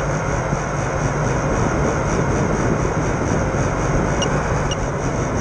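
FPV quadcopter's electric motors running steadily: a whirring hiss with a faint high whine on top. Two brief chirps come near the end.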